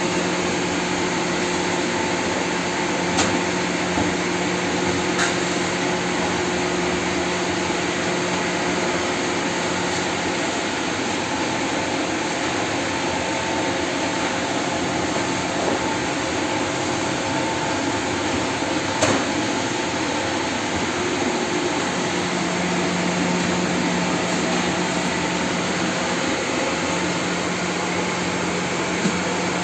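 Yufka bakery machinery running steadily: a constant rushing noise with a low hum underneath, and a few sharp clicks.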